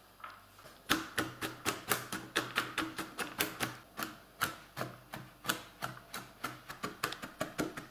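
Kitchen knife chopping almonds on a plastic cutting board: quick, uneven knocks of the blade, about four a second, starting about a second in.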